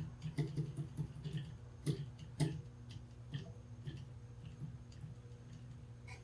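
Irregular light clicks and taps, most of them in the first three seconds and only a few after, over a steady low electrical hum.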